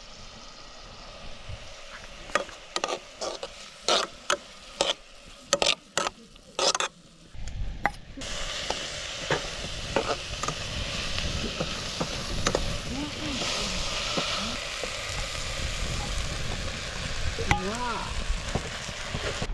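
Vegetables frying and sizzling in a pot over a wood fire. A series of sharp knocks and clinks comes first, then a steady sizzle sets in about halfway through.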